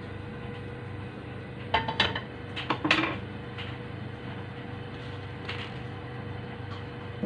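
A ceramic-coated wok clanking and scraping on a gas hob's metal pan support as it is set back on the burner, a cluster of knocks between about two and three seconds in and a few fainter ones later, over a steady low hum.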